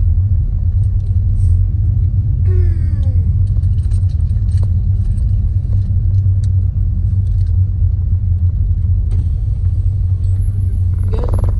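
A loud, steady low rumble, like a running vehicle engine, with a few faint clicks. A short falling voice-like sound comes about two and a half seconds in, and another short vocal sound comes near the end.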